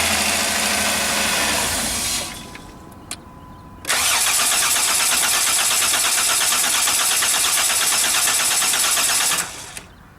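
2006 Dodge Grand Caravan engine starting and cutting out about two seconds in, then a second, longer crank of about five seconds with an even rhythm that does not catch. The key has no immobilizer microchip, so the engine starts, shuts off and will not restart.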